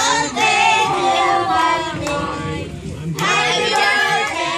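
A group of women and children singing a birthday song together around the cake.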